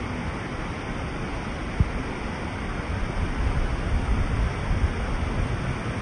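Water rushing over a dam: a steady, even rush with a low rumble. A brief thump a little under two seconds in.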